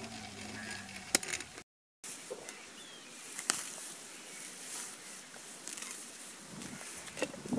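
Faint rustling and scraping of hands digging into dry soil and grass at a rat burrow, with a few sharp clicks. The sound cuts out completely for a moment about two seconds in.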